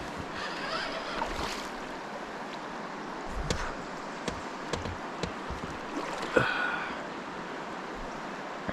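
Steady rush of river water and wind around a fishing raft, with scattered sharp knocks and clicks, the loudest about six seconds in.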